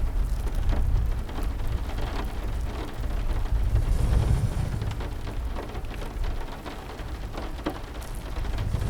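Steady rain with low rumbles of thunder that swell near the start and again around the middle, and scattered sharp crackles throughout.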